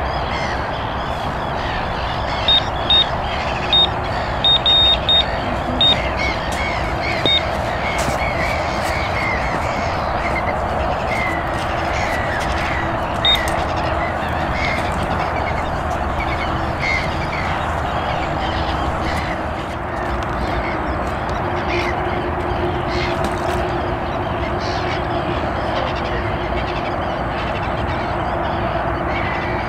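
Steady outdoor noise with a run of about ten short, high beeps in the first several seconds and one more later, over faint, wavering bird calls.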